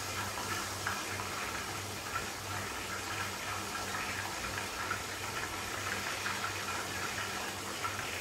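Chicken frying in oil in a frying pan with its lid on: a steady sizzle with small crackles and pops from oil spattering under the lid. A faint low hum runs underneath.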